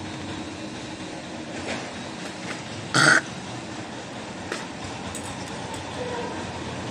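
A person hawking or gagging while brushing their teeth, once and briefly about three seconds in, over a steady background rumble.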